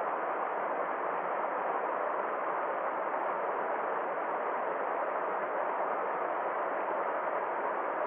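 Small rocky mountain stream running steadily over little cascades, an even rushing sound with no change or break.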